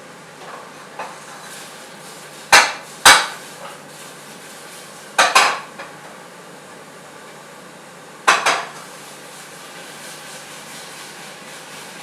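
A metal utensil clanking against a pot or pan. Three pairs of sharp clanks, each with a brief ring.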